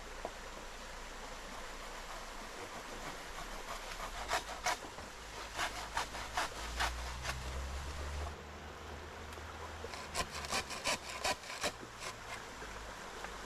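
A saw cutting through wood in two bouts of quick back-and-forth strokes, about two to three a second, over the steady rush of a small river.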